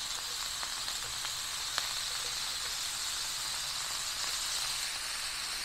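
Ground beef sizzling steadily in hot olive oil in a pan, with a few small pops. The strong sizzle is the sign that the pan is hot enough to brown the meat rather than stew it.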